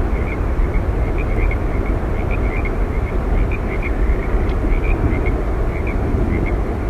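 Yosemite Falls roaring: a steady, loud rush of falling water, heaviest in the low rumble, with faint high chirps scattered through it several times a second.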